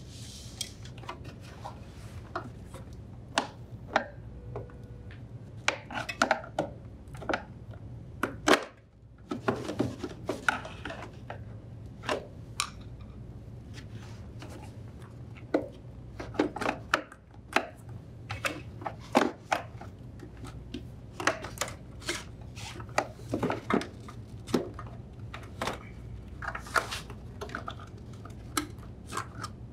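Plastic refrigerator condenser fan shroud assembly being worked out of its cavity by hand: irregular clicks, knocks and scrapes of plastic against plastic, foam and metal tubing, over a faint steady low hum.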